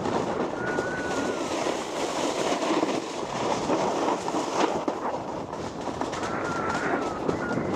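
Snowboard sliding and carving over hard, rough snow at speed: a continuous rumbling scrape of the base and edges, the snow rough enough to chatter. A faint thin squeal rises and falls briefly twice, about a second in and near the end.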